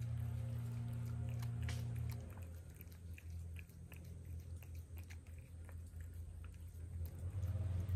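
Cats eating, with many small, quick chewing clicks. Soft background music fades out about two seconds in and comes back near the end.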